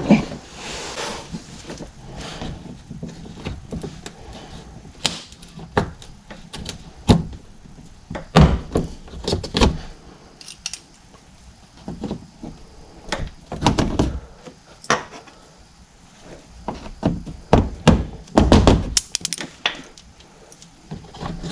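Irregular clicks, knocks and thunks of a flathead screwdriver prying at a 10th-gen Honda Civic's plastic retaining clips, with the loudest knocks in clusters about 5, 9, 14 and 19 seconds in.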